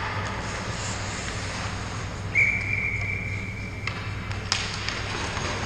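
Ice rink sound with a steady low hum. Midway a single steady high whistle tone is held for about a second and a half and cuts off suddenly. About half a second later comes one sharp clack, then a hiss of scraping.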